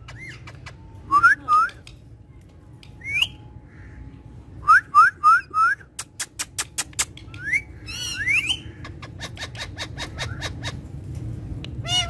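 Alexandrine parakeet calls: short rising whistled chirps in small groups, four in quick succession about five seconds in, and a fast run of sharp ticking notes just after.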